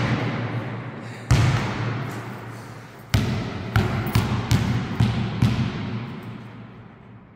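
A basketball bouncing on a sports hall floor: a single hit about a second in, another about three seconds in, then a quick run of bounces about three a second that dies away, each one echoing through the hall.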